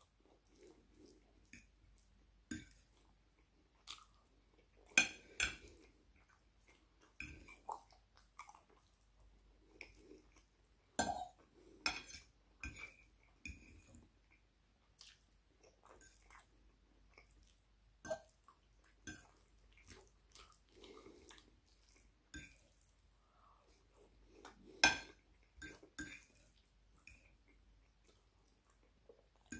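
Metal fork clinking and scraping against a ceramic plate at irregular intervals, several sharp clicks, with quiet chewing between.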